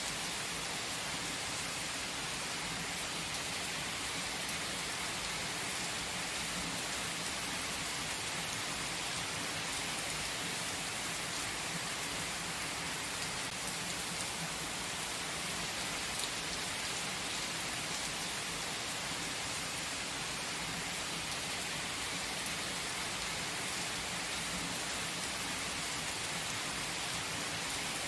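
Steady rain falling, an even hiss that keeps on without a break.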